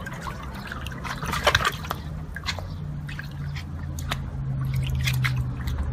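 Water splashing and sloshing in a shallow paddling pool as a beagle puppy's paws scramble at the rim, with scattered short splashes and drips over a steady low hum.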